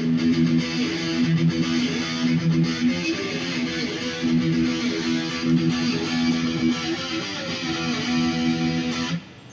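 Jay Turser JT-50 Custom SG electric guitar played through an amplifier in standard tuning, chords in a steady rhythm. It stops suddenly near the end.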